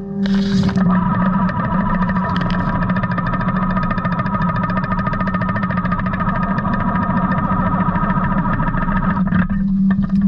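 Hydraulic mowing bucket on a Takeuchi 145 mini excavator running, its reciprocating cutter bar clattering fast and steadily through reeds and ditch plants over the excavator's steady engine hum. There is a brief hiss near the start, and the sound changes about nine seconds in.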